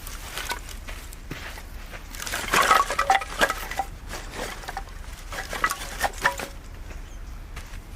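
Dishes and cookware clinking and knocking together as they are handled, in irregular clusters of sharp clinks, loudest about two and a half to three and a half seconds in, with a few more clinks around six seconds.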